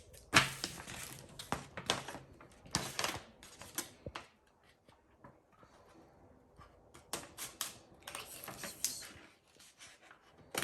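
A sheet of paper being handled and folded by hand, rustling and crinkling in short bursts with quiet gaps between.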